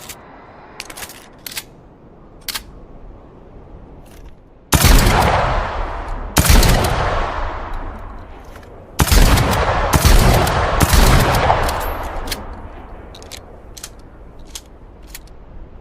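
Short-barreled shotgun firing five loud shots in two groups, each blast trailing off in a long echo. Light clicks come before the first shot and after the last.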